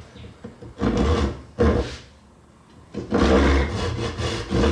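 Tenon saw cutting hard maple by hand, the teeth rasping in the kerf: two short strokes, a pause of about a second, then steady back-and-forth strokes.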